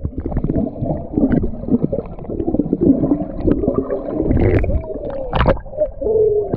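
Bubbles gurgling and water churning, heard from under the surface of a swimming pool, so the sound is muffled, with scattered clicks and pops: a swimmer blowing out air while flipping over and over underwater.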